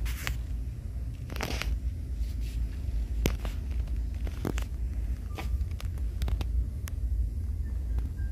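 Steady low rumble with scattered clicks and short crackles, typical of handling noise on a handheld phone microphone as it is moved along.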